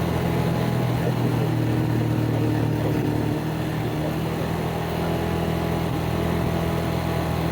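ATV engine running at a steady speed, its hum easing slightly about three and a half seconds in.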